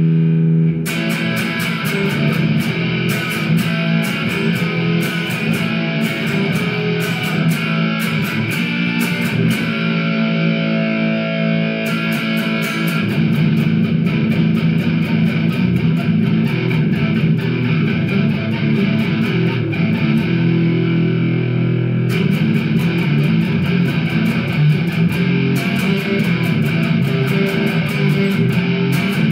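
Amplified electric guitar playing: a held, distorted note gives way about a second in to busy picked notes and chords with sharp attacks, running through an effects-laden tone.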